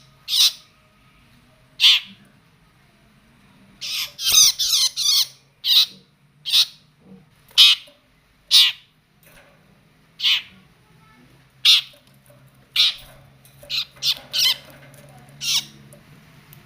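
Long-tailed shrike giving short, harsh, repeated calls about every second or two, with a quick run of several together around four to five seconds in. These are the agitated calls of a shrike excited at the sight of a cricket.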